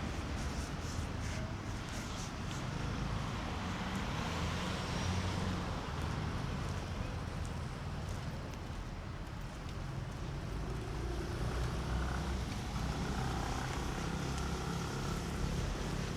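City street traffic: cars passing with a steady low engine rumble and tyre noise.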